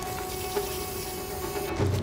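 Aerosol spray can hissing steadily for about a second and a half, then cutting off, over background music.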